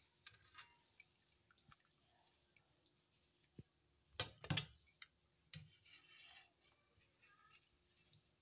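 Boiled chicken pieces lifted out of hot broth with a wire spider strainer, broth dripping and splashing faintly, with two sharp metal clanks a little after four seconds in as the strainer knocks against an aluminium steamer pot.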